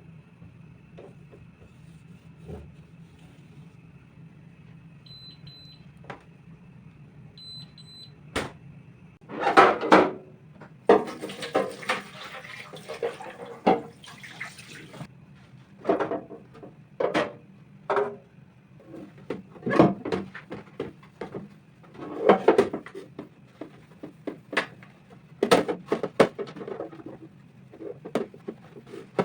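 Kitchen items being handled: a series of knocks, clatters and rustles as things are picked up and set down, over a faint steady hum. Two short pairs of high beeps sound about five and seven seconds in, and a hissing rush runs for about four seconds near the middle.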